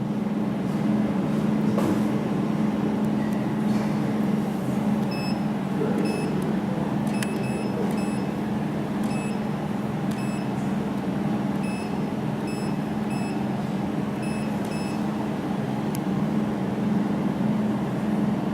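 Jewelry laser welding machine humming steadily, with about twenty short high beeps, single or in quick pairs, through the middle stretch as it is worked on silver.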